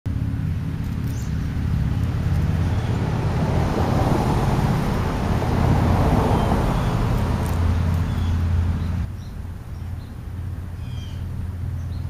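Road traffic noise that swells to its loudest around the middle and drops off abruptly about nine seconds in, with a few faint, short bird chirps.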